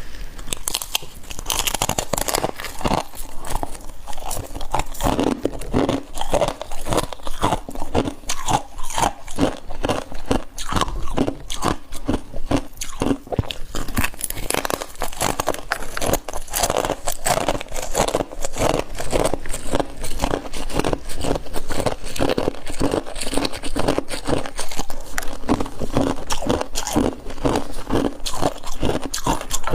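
Close-up crunching of frost being bitten and chewed, a rapid run of crisp crunches throughout.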